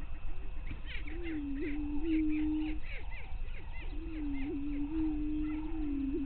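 Greater prairie chickens on a lek: males booming in long, low, overlapping moans, about a second in and again from about four seconds, with short cackling calls above them throughout.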